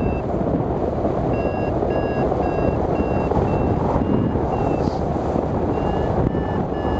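Wind rushing over the microphone of a hang glider in flight. A flight variometer beeps over it in short, evenly spaced beeps of one pitch, about three a second. They start about a second in and pause briefly near the five-second mark. The beeping is the instrument signalling that the glider is climbing in lift.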